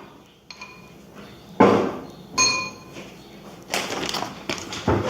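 Kitchen clatter: two sharp, ringing clinks of glass or ceramic dishes being knocked together, followed by a stretch of rustling noise and a thump near the end.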